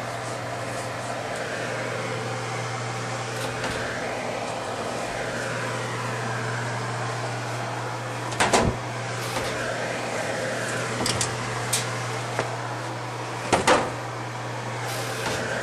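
A steady low machine hum with a rushing noise, broken by two loud knocks, one about eight seconds in and one near the end, and a few lighter clicks between them.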